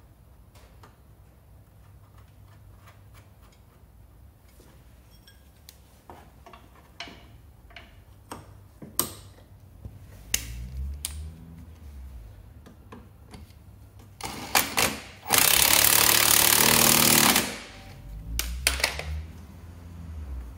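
Hand tools clicking and knocking against the scooter engine. A power tool then runs in one loud burst of about two seconds, a little over halfway through.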